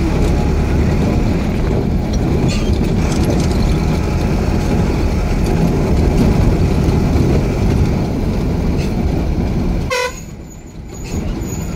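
Engine and road noise heard from inside a moving vehicle's cabin, with a short horn honk about ten seconds in, after which the noise drops sharply as the vehicle eases off.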